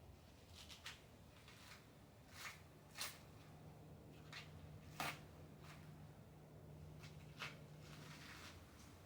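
Coconut husk being torn off by hand: a handful of faint, scattered snaps and rustles of the fibres giving way, the sharpest about five seconds in.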